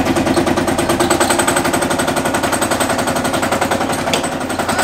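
Lanz Bulldog tractor's single-cylinder two-stroke engine running with a rapid, even knocking beat.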